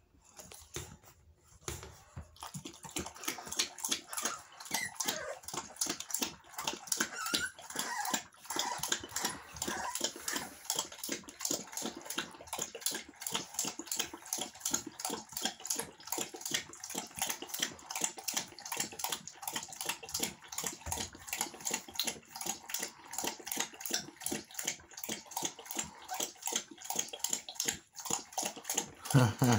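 American bully puppies lapping rapidly and wetly from a plastic bowl in a fast, continuous patter, with a few short puppy squeaks in the first third. There is a low bump just before the end.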